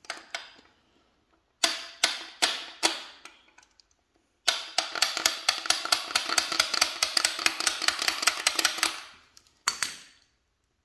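Hand socket ratchet working the stiff, gummed-up oil pump/distributor drive shaft in a cast-iron Mopar 361B block: a few sharp metal taps, then a long run of rapid ratchet clicks, about nine a second, lasting several seconds.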